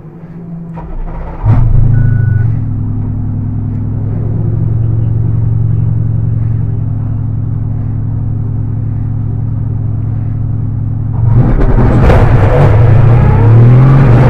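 Mercedes-AMG GT4's twin-turbo V8 firing up about a second and a half in and idling steadily on the pit-speed limiter, then getting louder with revs rising near the end as the car pulls away.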